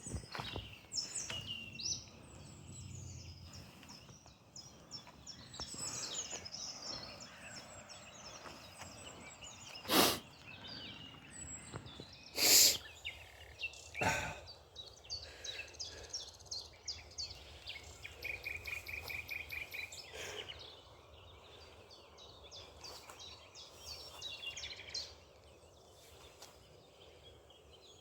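Small birds chirping and calling in the open, with a quick even trill about two-thirds through. Three short, loud sudden knocks come near the middle, a second or two apart.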